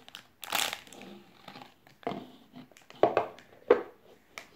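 Plastic candy wrapper crinkling in a child's hands as it is pulled out and felt, in several short rustling bursts.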